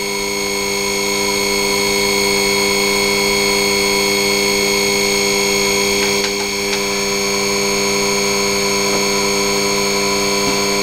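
Small electric motor running steadily under its controller's speed program, giving a constant whine of several pitches at once, near its top speed of about 3,200 rpm.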